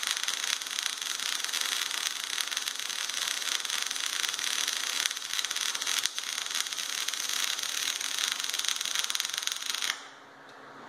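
Automated MIG welding arc on a steel driveshaft tube: a steady crackling hiss that cuts off suddenly near the end as the weld finishes.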